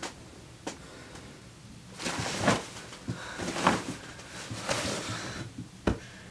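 Bedclothes rustling in three or four loud swishes as a person turns over in bed, with a few sharp clicks, one near the end.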